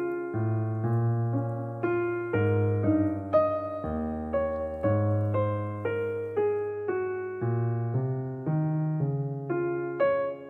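Background piano music: a gentle keyboard tune with a new note or chord struck about every half second, each fading away.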